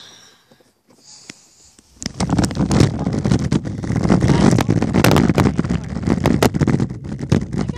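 Small hard wheels rolling over rough asphalt: a loud, gritty rumble with many small clacks that starts suddenly about two seconds in.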